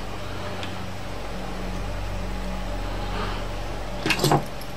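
Steady low electrical hum. Near the end comes a brief cluster of clicks and knocks as something is handled at the workbench.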